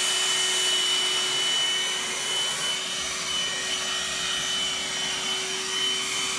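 Veken handheld wet/dry vacuum (model CZK6625) running steadily: an even motor tone and a high whine over the rush of air.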